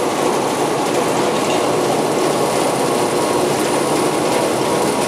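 Forrest Manufacturing Model 480i horizontal band saw running: the blade drive and the traveling table's drive going together as a steady, even mechanical noise with a faint hum.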